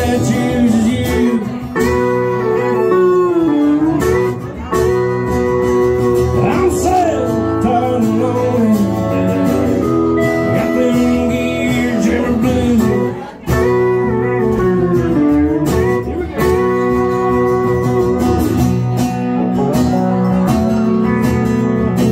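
Live country music: an acoustic guitar with a pedal steel guitar playing long sustained notes that slide and bend in pitch.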